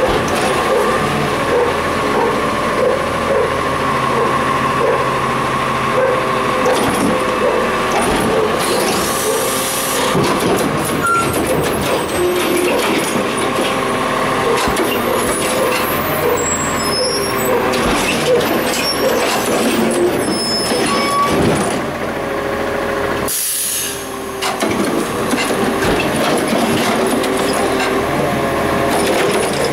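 Heil Rapid Rail side-loading garbage truck on a CCC LET2 chassis running, with a steady hydraulic whine as the arm works early on. Short high brake squeaks come as it pulls up, along with air-brake hisses, the sharpest about 23 seconds in.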